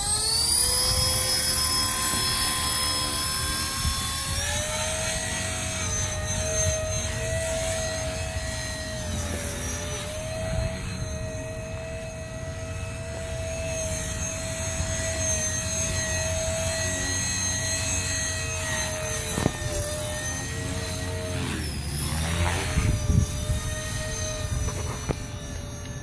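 Blade 400 3D electric RC helicopter in flight: a steady whine from its motor and rotors, which steps up in pitch about four seconds in and dips briefly near the end, with a few sharp knocks after the dip.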